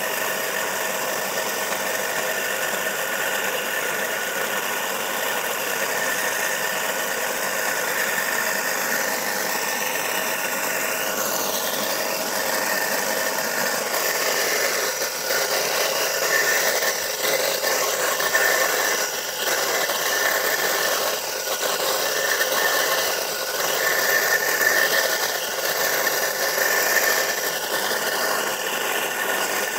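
Single-phase electric motor of a wheeled furrowing cultivator running under load as it cuts a furrow through dry soil: a steady whine with rattling. About eleven seconds in the whine dips in pitch, and from then on the sound gets rougher and more uneven as the load varies.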